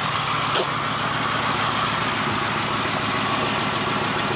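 Mercury Grand Marquis 4.6-litre V8 idling with a misfire, the engine running unevenly and shaking. A brief click about half a second in.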